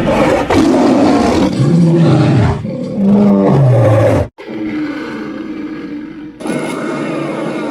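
European dragon roar sound effects: a series of loud roars and growls in quick succession, some with a pitch that swoops up and then falls. Each clip cuts off abruptly into the next, with a quieter, lower growl in the middle.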